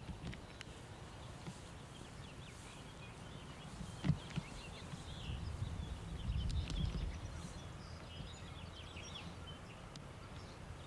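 Outdoor garden ambience: scattered faint bird chirps over a low rumble on the microphone, the rumble louder between about five and seven seconds in, with a single sharp knock about four seconds in.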